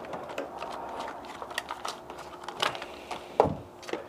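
Hands handling a battery charger's lead wires: scattered light clicks and rustles, with one sharper knock about three and a half seconds in, over a faint steady hum.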